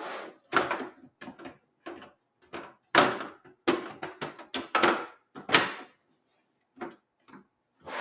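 Metal side panel of a Dell Inspiron 3668 desktop case being handled and slid onto the chassis: a run of sharp knocks, clicks and scrapes, loudest from about three to five and a half seconds in.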